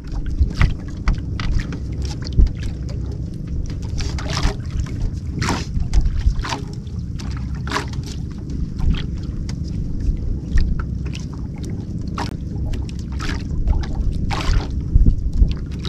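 Wind buffeting the microphone and water lapping at a small outrigger boat, with scattered short sharp sounds, the strongest about a third of the way in and near the end, as a fishing longline is hauled in by hand.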